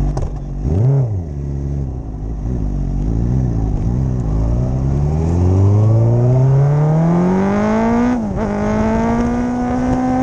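Sport motorcycle engine idling, blipped sharply once about a second in and a few times lightly, then pulling away and accelerating with a steadily rising pitch. Near the end it upshifts, the pitch dropping briefly before rising again.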